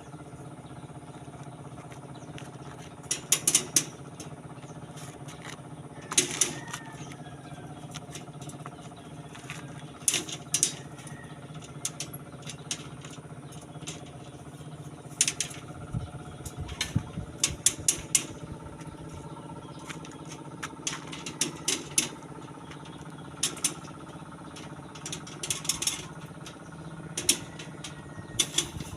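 Repeated sharp metallic clinks and taps in short clusters, typical of steel reinforcing bars being handled and bent into stirrups, over a steady engine hum.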